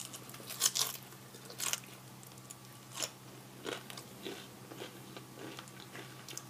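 Close-up chewing of crunchy fried tortillas: irregular crisp crunches with a bite, the loudest about half a second in, then softer chewing.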